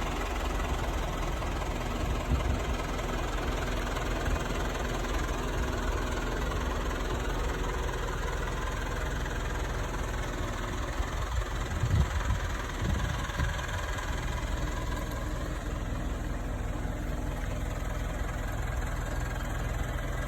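Fermec 760 backhoe loader's diesel engine idling, a steady low drone, with a few louder thumps a little before the middle.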